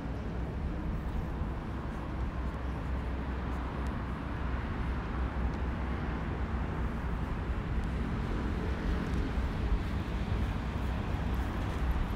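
Street ambience dominated by a steady low rumble of road traffic, growing slightly louder in the second half.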